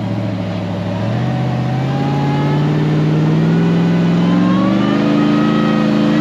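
Ram 1500 TRX's supercharged 6.2-litre V8 revving under load as the truck claws up a soft sand slope, its engine note rising steadily from about a second in.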